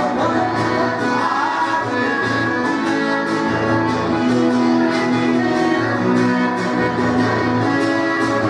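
Live sertanejo music: a piano accordion plays sustained melody lines over a strummed acoustic guitar, in what is mostly an instrumental passage between sung lines.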